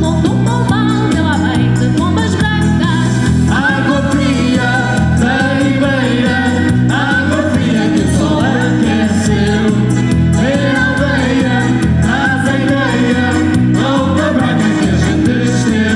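A live band playing a song with a singer, over a bass line that moves in steps and a steady beat.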